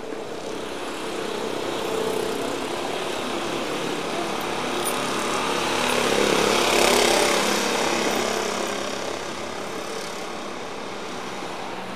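A small vehicle engine running and driving past: it grows louder to a peak about seven seconds in, then fades away.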